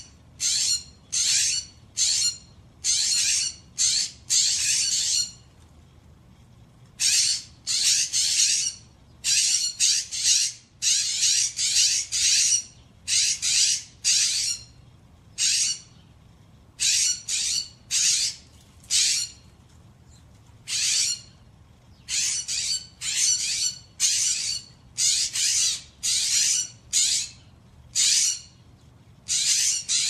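Western scrub jays giving harsh screech calls in quick runs, broken by pauses of a second or two. This is the screeching chorus scrub jays raise on finding a dead jay.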